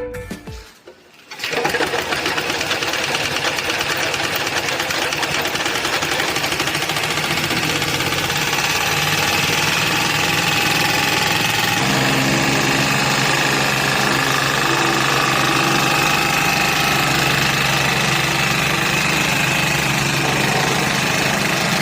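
Engine-driven plate compactor running steadily as its plate vibrates rapidly, compacting interlock paver blocks. The engine note changes about halfway through.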